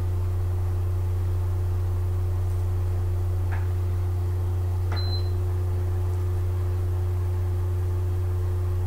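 A steady low hum with a fainter higher tone over it, at an even level throughout. There are two faint ticks, and a very short high beep about five seconds in.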